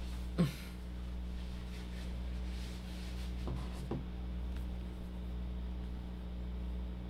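Steady low electrical hum, with a short falling-pitch thump about half a second in and two fainter taps around three and a half and four seconds.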